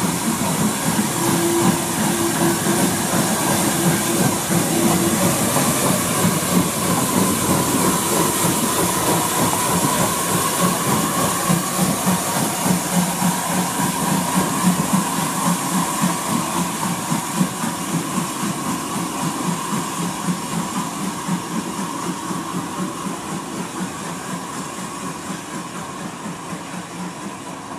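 Steam tank locomotive, a USA-class 0-6-0T working as NCB No 35, hauling a short train of wagons: quick exhaust beats and steam hiss, with the wagons rumbling along the rails. It fades steadily over the last ten seconds or so as it draws away.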